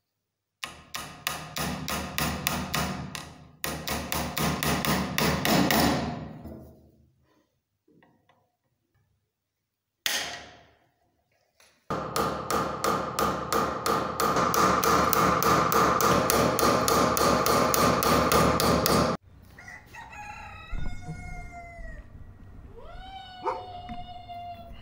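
Rapid, evenly spaced hammer taps ringing on a steel rivet, peening over the rivets that fix the handle to a scraper blade held in a vise. The taps come in runs with a pause and one lone strike, and stop suddenly about nineteen seconds in. After that come quieter animal calls that rise and fall in pitch.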